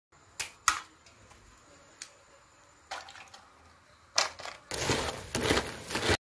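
Wet handling of crab shells: a few sharp clicks early, then louder wet crunching and scraping for about two seconds near the end that cuts off suddenly.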